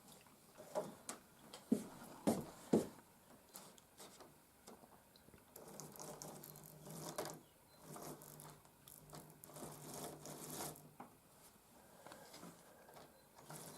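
A Lima pannier tank model locomotive's small electric motor humming faintly with a rattly clicking as it runs on the track, after a few sharp knocks in the first few seconds. The motor starts about five seconds in and stops near eleven seconds.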